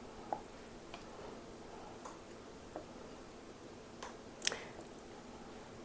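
Quiet room tone with a few faint scattered clicks and taps from handling food and utensils as strawberry pieces are laid on salad plates; the sharpest tap comes about four and a half seconds in.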